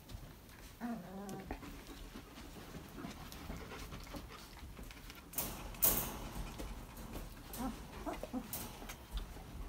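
A dog whimpering: a short wavering whine about a second in, then a few faint whimpers later, with short rustling noises around the middle.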